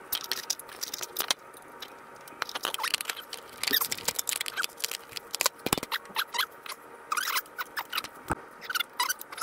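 Hands working on a small mower engine: scattered clicks and taps of metal and plastic parts, with several short squeaks.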